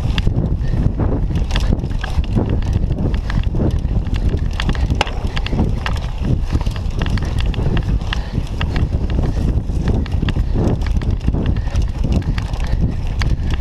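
Cyclocross bicycle jolting and rattling over rough, bumpy grass and dirt, heard from a camera on the handlebars: many sharp knocks over a steady low rumble.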